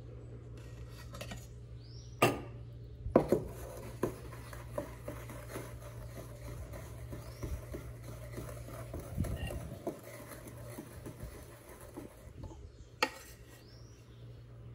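Stainless steel milk pitchers clinking against each other and being set down on a granite countertop while steamed milk is poured from one to the other, with sharp knocks about two and three seconds in and one near the end. A steady low hum runs underneath.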